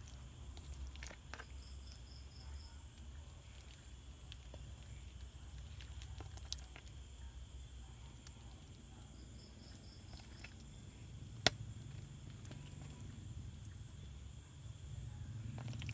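Quiet night ambience around a small charcoal grill: a steady high insect chirping with two short pulsed trills, faint scattered clicks, and one sharp click about eleven seconds in, over a low rumble.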